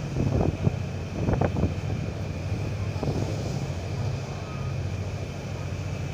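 Car ferry's engine running with a steady low drone, with wind on the microphone. A few short louder sounds break in during the first two seconds.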